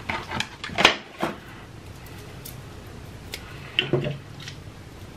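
A few light clicks and taps from handling a plastic-wrapped candy cane, then a short hum about four seconds in.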